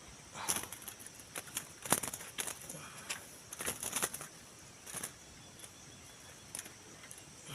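Irregular rustling and fluttering, several quick bursts loudest about two and four seconds in: a freshly caught greater green leafbird beating its wings in a trap cage.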